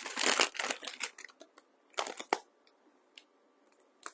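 Crunching and crinkling of dry craft materials handled by hand while hot-gluing, a dense stretch in the first second and another short burst about two seconds in, then a few light clicks.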